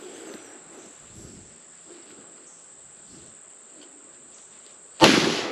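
Insects drone steadily in a high, even tone. Near the end a single loud shotgun blast cuts in sharply and dies away over about a second as it echoes through the woods.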